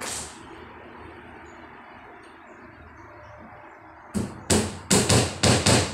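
Hammer driving a nail into a wooden batter board: one blow right at the start, then a quick run of about six blows beginning about four seconds in.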